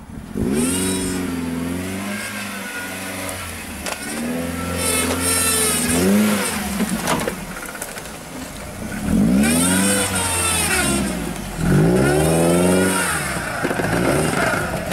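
Lifted Suzuki Jimny off-roader's engine revving hard under load in about four surges, its pitch climbing and falling each time.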